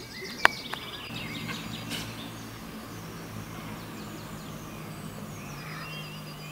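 Outdoor ambience under trees: faint short bird chirps over a steady low hum, with one sharp click about half a second in.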